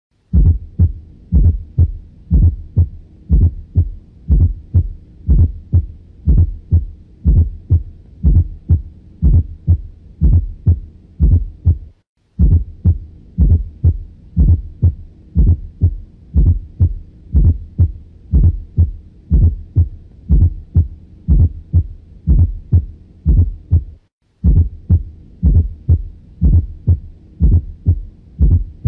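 Auscultated heart sounds with a fourth heart sound (S4): a regular run of low thuds, the faint low S4 falling just before each first heart sound, heard through a stethoscope bell. The recording loops, breaking off for a moment twice.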